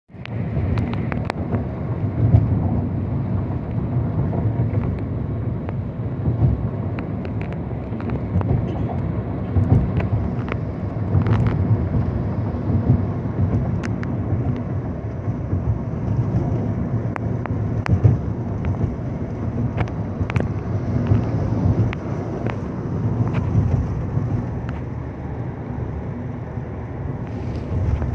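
Inside the cabin of a Toyota taxi on the move: steady low engine and road rumble, with scattered light clicks and knocks.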